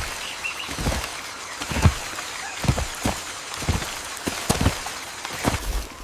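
Steady hiss of rain with irregular heavy thuds of falling water, one or two a second.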